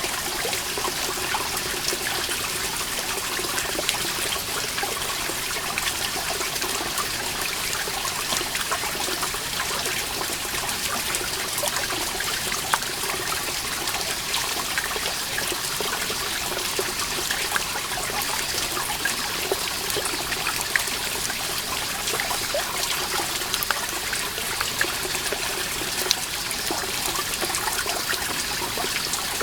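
Water seeping through a moss-covered rock wall and falling as many drops, dripping and pattering irregularly over a steady trickle.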